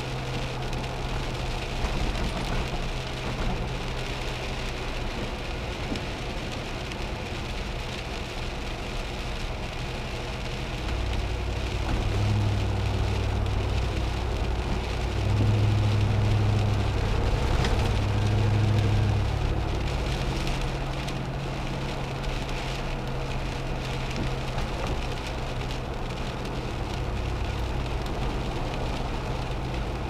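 Car driving on wet roads, heard from inside the cabin: a steady low engine hum and tyre noise under the hiss of rain on the windshield. The engine hum grows louder for several seconds midway through.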